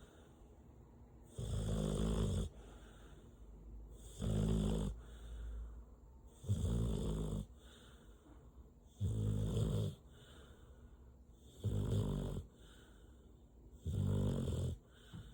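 Mixed-breed dog snoring, a loud snore about every two and a half seconds, each lasting about a second, with quieter breathing in between.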